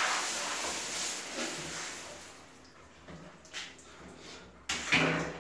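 Handheld shower spraying water onto a wet Belgian Malinois in a tiled shower, dying away after about two seconds. Near the end come a sharp knock and a brief louder noise.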